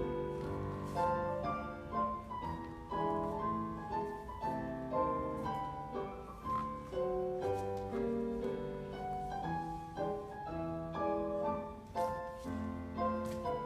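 Solo piano music accompanying a ballet barre exercise, playing chords and a melody to a steady beat.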